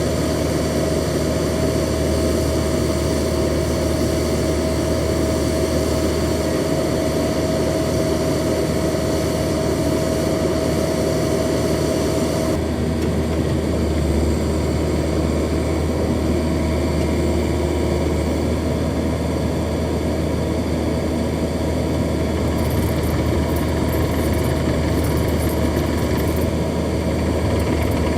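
Mecalac 8MCR mini excavator's diesel engine running steadily at idle, with a steady whine that stops about halfway through.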